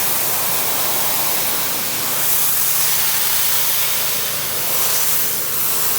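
Pressure washer spraying a low-pressure rinse of water onto Ipe deck boards, washing off the old dead layer of wood loosened by sodium hydroxide. It is a steady hiss of spray over a constant low hum.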